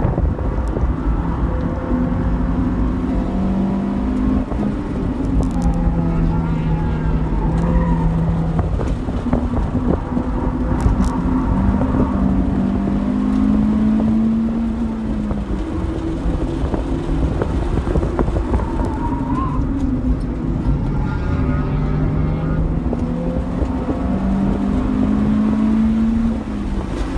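2002 Acura RSX's four-cylinder engine heard from inside the cabin under hard track driving, its note climbing and dropping again and again through the corners, over steady road and wind rumble.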